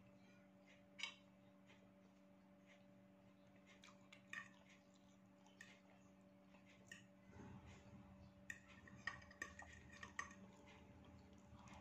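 Faint eating sounds: chewing mouth clicks, and a metal fork tapping and scraping a ceramic plate as instant noodles are lifted and eaten. The clicks come thicker in the second half, over a steady low hum.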